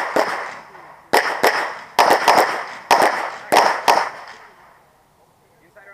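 Pistol shots in rapid succession, mostly in quick pairs, as a competitor engages targets on a USPSA stage; each crack has a short echo. The shooting stops about four and a half seconds in.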